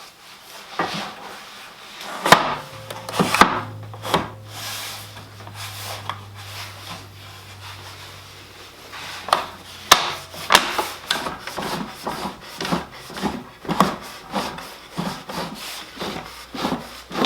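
Wooden boards being handled, knocking and rubbing against each other with a string of irregular knocks and scrapes. A low steady hum runs under them from about two seconds in until about ten seconds in.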